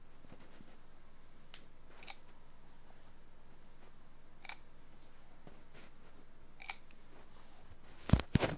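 A small microphone held against the outer ear picks up faint, sparse clicks and scratches of contact with the skin. Near the end come several loud handling knocks and rubbing as it is shifted against the ear.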